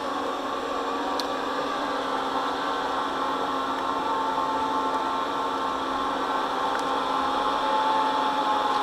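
Hair dryer running slowly and steadily as the discharge load for LiPo batteries. Its current is tapering toward cut-off in the constant-voltage phase, so the dryer has slowed right down.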